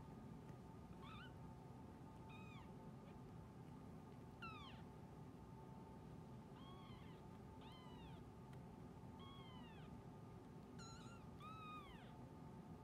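Newborn kittens mewing faintly while they nurse: about eight short, high-pitched mews spaced a second or two apart, each rising and then falling in pitch.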